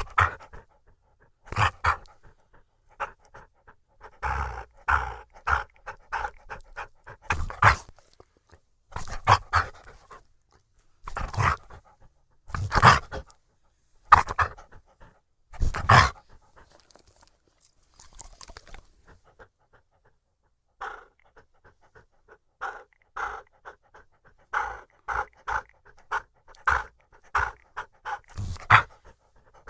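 Australian Cattle Dog panting close to the microphone, with louder breathy bursts every second or two. After a short pause, a quicker, steadier run of pants starts about 21 seconds in.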